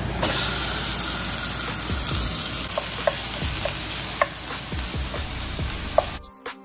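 Raw ground beef sizzling loudly as it hits hot oil in a cast-iron skillet and is broken up and stirred with a wooden spoon, with a few sharp clicks along the way. The sizzle starts suddenly and cuts off shortly before the end.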